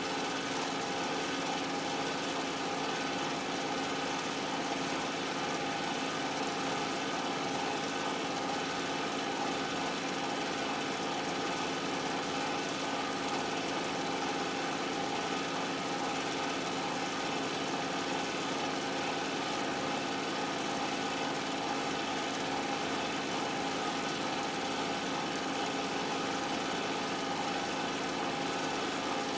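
A steady, unchanging mechanical drone with a constant hum.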